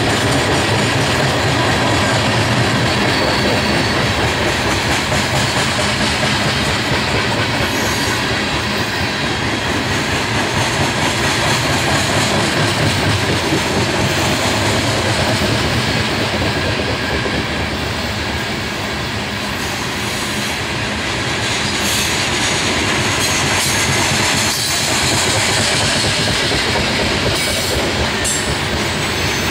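Coal hopper cars of a freight train rolling past: a steady, loud rumble of steel wheels on the rails, with repeated clicks as the wheels pass over the track.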